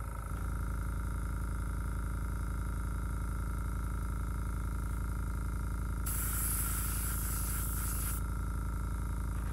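Small airbrush compressor running with a steady hum. About six seconds in, the airbrush sprays for about two seconds with a loud hiss of air and paint.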